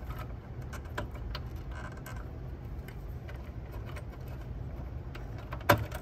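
Hands untying and handling wiring inside an opened cassette deck: scattered small clicks and rattles over a low steady hum, with one sharp click near the end.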